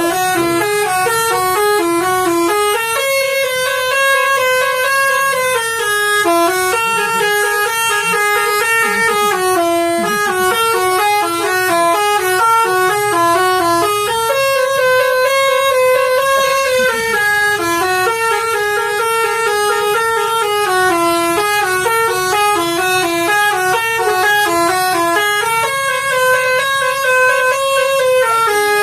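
Indonesian 'telolet' bus horn, a set of electronically switched horns, playing a melody in quick stepping notes. The tune repeats about every eleven seconds.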